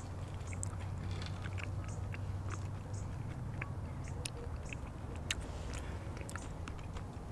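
Close-miked chewing of a mouthful of chicken pot pie, with scattered small crisp clicks and crackles over a steady low hum.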